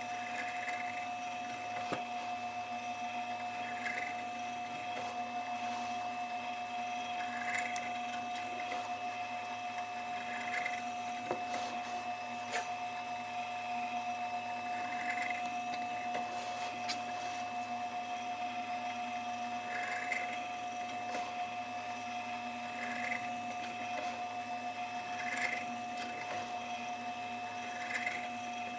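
Drill press motor running steadily, with a short burst of cutting every few seconds as a small bit bores screw holes down into a layered plywood mold.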